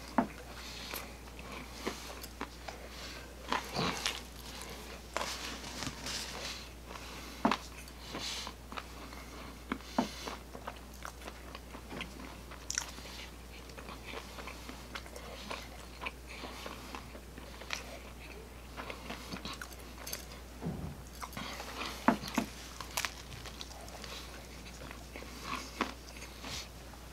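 Close-miked chewing and biting of pizza: irregular sharp clicks and crackles of the crust in the mouth, over a faint low hum.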